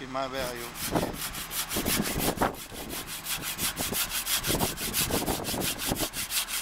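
Hand saw cutting through soft, weathered stone of a roof finial, in quick, even back-and-forth strokes, several a second.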